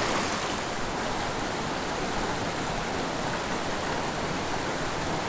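Steady rushing of a small mountain creek's water over rocks, an even hiss without breaks.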